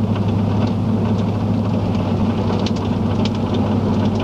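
Steady running noise heard from inside a vehicle: a constant low engine hum over road and wind rush, with scattered light ticks.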